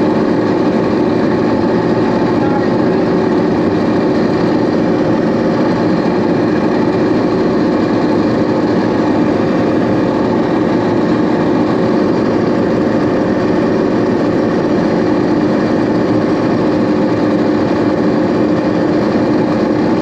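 A John Deere combine harvester running steadily while harvesting soybeans: a constant, even machine drone that holds the same pitch throughout.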